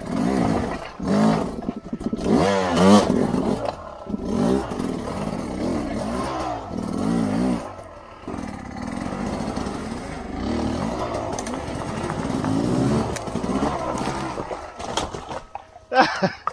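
Sherco 250 SE-R two-stroke engine revving up and down again and again under load, its pitch rising and falling with each burst of throttle. A short, loud clatter comes near the end.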